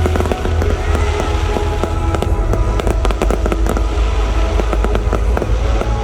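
Fireworks display: a dense run of sharp crackling bangs over a heavy low rumble of bursts, with music playing alongside.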